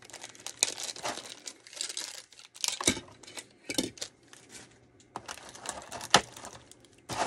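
Small clear plastic bag crinkling and rustling in the hands as it is handled and opened, with a few sharp clicks of small plastic toy pieces, the loudest about six seconds in.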